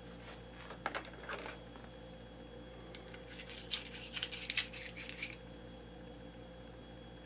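Light metallic clicks and clinks, a few scattered ones early and a quick cluster of them between about three and five seconds in, as of small metal parts being handled.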